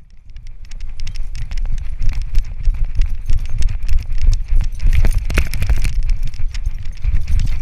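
Rapid, irregular clicks, knocks and rattles from a GoPro on a dog's harness as the dog moves about, over a heavy low rumble of the mount rubbing and buffeting against the microphone.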